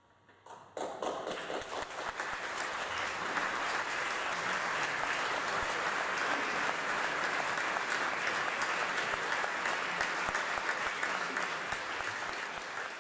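Audience applauding at the close of a choral-orchestral performance: a few scattered claps about half a second in, quickly filling out into steady, full applause.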